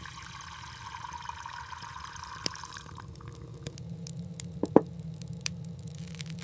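Liquid pouring steadily for about three seconds, then scattered drips and small clicks, one of them sharper near the end.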